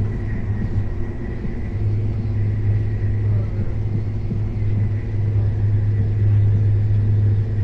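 KTX high-speed train running at speed: a steady low rumble with a constant deep hum.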